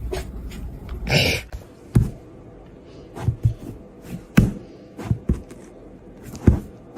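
A series of irregular dull thumps and knocks, about seven over several seconds, with a short rustling burst about a second in.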